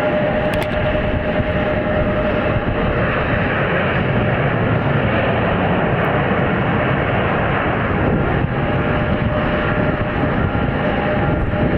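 Jet airliner's turbofan engines heard from an airport apron: a steady rushing noise with faint whining tones that come and go.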